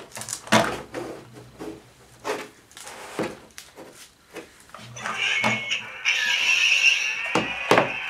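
Plastic toy parts clicking and knocking as they are handled. About five seconds in, the Star Wars Force Link wristband starts playing a steady, high-pitched electronic sound effect.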